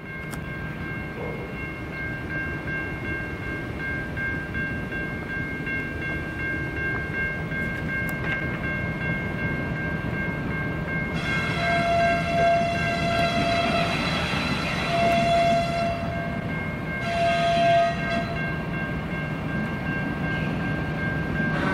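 Diesel-electric freight locomotives running as the train approaches. The lead locomotive's horn sounds a long blast about halfway through, then a shorter one near the end.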